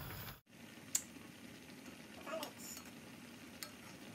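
Soup being stirred with a metal ladle in an enamelled cast-iron pot: a low steady simmering hiss with a few light clicks of the ladle against the pot, one about a second in and another near the end.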